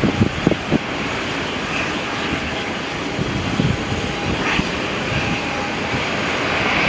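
Airliner engines running, a steady rushing noise with a faint steady tone in it. Low thumps in the first second sound like wind on the microphone.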